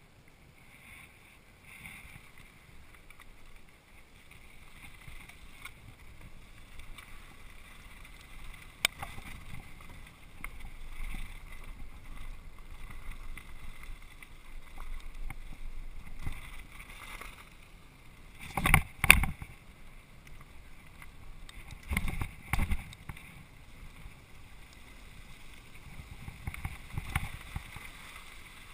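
Mountain bike rolling downhill on a gravel trail, recorded by a camera mounted on the bike: a steady rumble of tyres on loose dirt and bike rattle with wind on the microphone. Two loud clattering jolts come about two-thirds of the way through, a few seconds apart, as the bike hits bumps.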